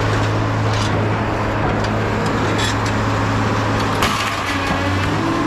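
Vehicle engine running steadily as a low, even drone, with a sharp knock about four seconds in.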